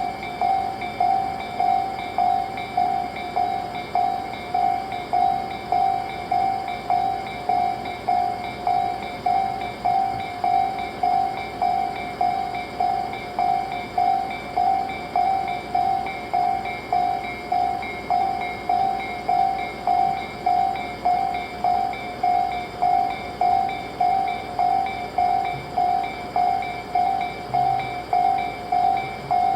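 Japanese level-crossing warning bell ringing steadily, about three strokes every two seconds, each ring fading before the next. The barriers are down and a train is due.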